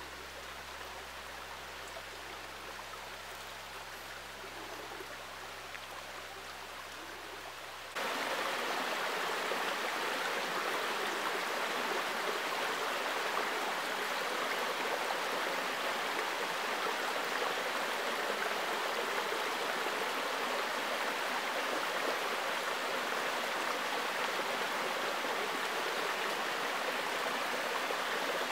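Shallow forest creek running over stones and small rapids, a steady rushing and burbling of water. It is quieter at first, then suddenly louder and fuller from about eight seconds in.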